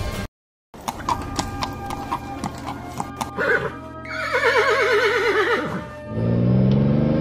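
A horse whinnies about halfway through, one long wavering neigh, over background music. Near the end a car engine revs, rising in pitch.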